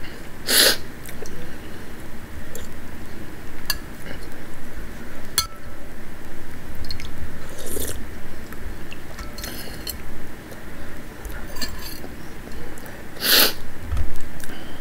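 Someone eating pozole from a spoon: chewing and several short slurps, the loudest about half a second in and near the end, with a few light clinks of the metal spoon against the bowl.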